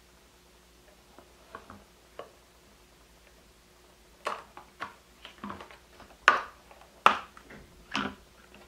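Two-part ball-shaped baking mould being handled and its halves pulled apart: a few faint ticks, then from about four seconds in a run of sharp clicks and taps, the two loudest about a second apart near the end.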